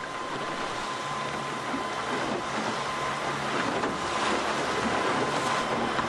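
Small boat's outboard motor running steadily under wind and sea noise.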